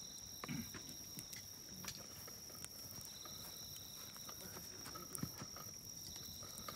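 A steady high insect trill, crickets or katydids singing, with scattered faint clicks and soft knocks from camp gear being handled.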